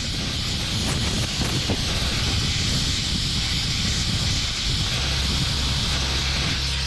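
Compressed-air blow gun hissing steadily as it blasts packed dirt out of an electrical connector, with a low rumble underneath.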